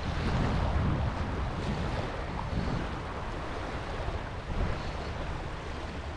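Small waves washing up and running back over a sandy beach, with wind buffeting the microphone.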